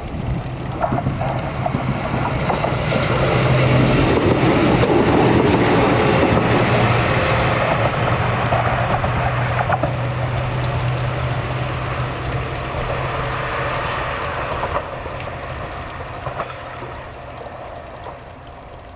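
Kotoden 1100-series electric train passing, its wheels clattering on the rails, with a steady low hum. It grows louder to a peak about five seconds in and then slowly fades away.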